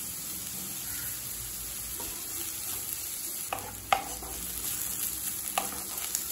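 Chopped vegetables sizzling in hot oil in a kadai on high flame while a spatula stirs and tosses them. A few sharp scrapes of the spatula against the pan stand out in the second half.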